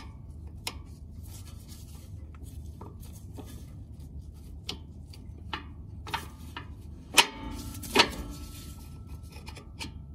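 Metal clicks and light scraping as a hand tool works the shift lever on a Porsche Boxster 986's gearbox, moving it through its travel. Two sharp, ringing metal clinks come a little under a second apart past the middle.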